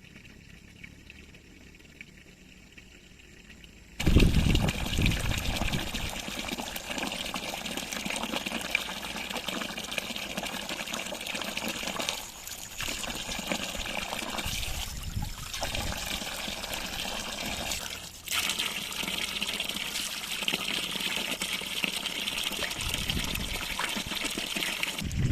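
Water running and trickling close to the microphone. It starts abruptly about four seconds in after a quiet opening and keeps on steadily, with a few short dips.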